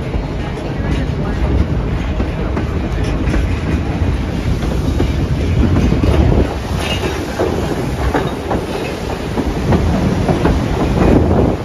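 Passenger train cars rolling along the track: a steady rumble with the irregular clatter of wheels over the rails, heard from the open side of a moving carriage.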